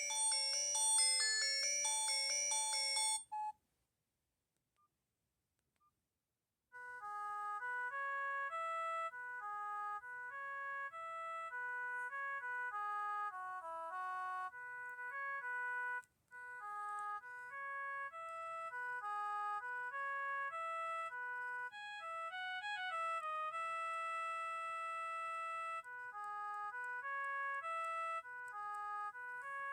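Phone ringtones from a Vortex Image phone. A dense chiming melody ends about three seconds in, and after a few seconds of silence a simple electronic ringtone melody of clean single notes starts up and keeps playing, breaking off for a moment about halfway through.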